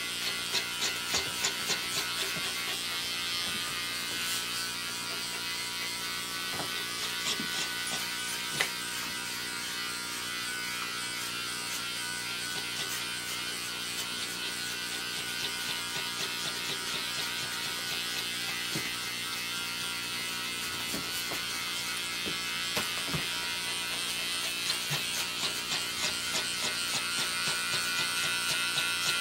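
Handheld electric pet clipper buzzing steadily as it trims a dog's fur. Near the start and again near the end, short rasps recur a few times a second as the blade is worked through the coat.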